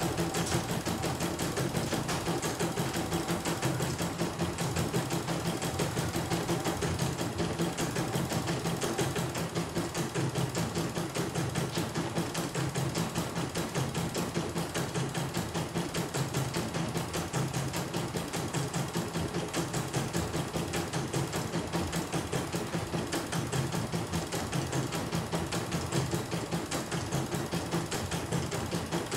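CNY E900 computerized embroidery machine stitching a design: a steady, rapid, even clatter of needle strokes.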